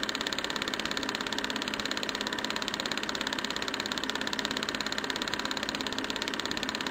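Film projector running, a rapid, even mechanical clatter.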